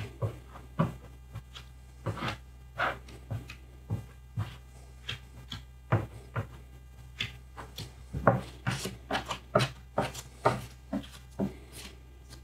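A plastic putty spreader scraping and tapping on a tabletop as polyester filler putty is spread and smoothed, in quick irregular strokes.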